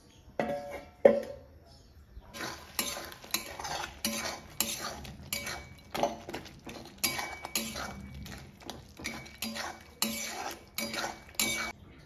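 Metal spatula stirring a thick vegetable curry in a metal kadai, scraping and knocking against the pan's sides: two sharp knocks in the first second, then steady strokes about twice a second with a faint metallic ring.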